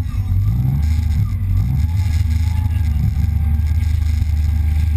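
Personal watercraft (WaveRunner) engine running steadily at low speed, a deep drone whose pitch wavers a little.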